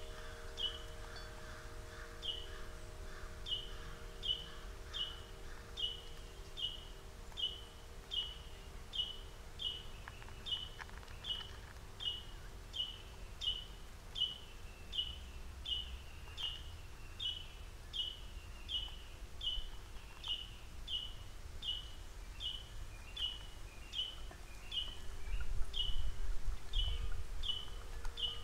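A bird calling one short, high note over and over at an even pace, about three notes every two seconds. Near the end a low rumble comes in and is the loudest thing.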